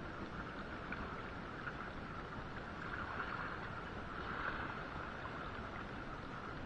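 Steady wind and sea-water noise at the surface, even throughout, with no distinct events.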